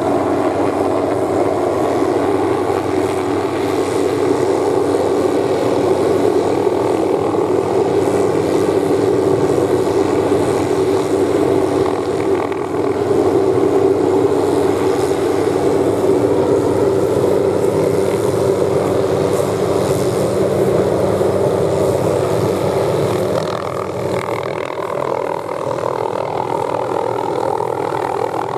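Hughes 500E (MD369E) helicopter's rotor and turbine engine running steadily as it flies low overhead. The sound grows a little fainter near the end as the helicopter moves farther off.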